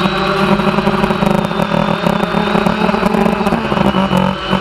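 Quadcopter drone's electric motors and propellers buzzing in flight, heard from the camera mounted on the drone itself: a steady layered hum with a high whine above it. The tones waver and shift in pitch about four seconds in, as the motor speeds change.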